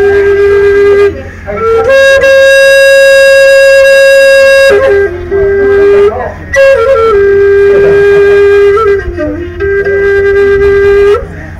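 Wooden Native American courting flute playing a slow melody of long held notes. It mostly sits on one low note with small dips, climbs to a higher note held for a couple of seconds, and pauses briefly between phrases.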